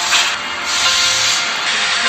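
Long bursts of loud, rasping hiss over background music.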